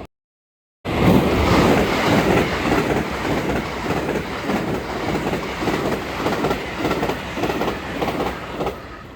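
Train passing at speed, its wheels clacking over the rail joints in an even rhythm. The sound cuts in about a second in and dies away near the end.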